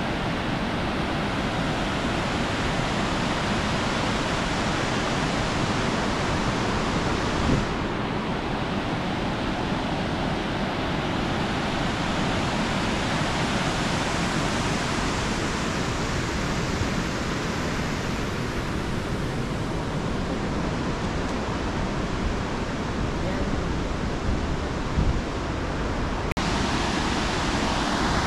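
Steady roar of a large waterfall, the Kaveri River pouring over rock, changing slightly in tone about eight seconds in.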